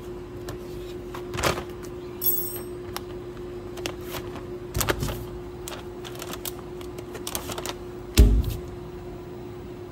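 Steady hum from a digital label die-cutter, with irregular clicks, paper crackles and label-stock rustles as a cut label is peeled off its backing by hand. A loud dull thump comes about eight seconds in.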